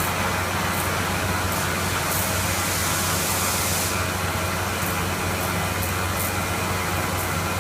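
CNC router running steadily through a job, with a constant low hum under a steady hiss. The hiss gets louder for about two seconds in the middle, and there are occasional faint high ticks.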